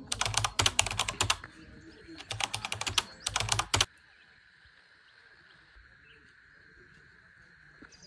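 Two spells of rapid, dense clicking, the second one ending abruptly about four seconds in, then only a faint steady background hiss.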